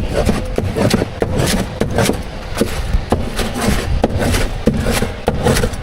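Street food stall at work: frequent short clicks and knocks, like utensils and packaging being handled, over a steady low rumble.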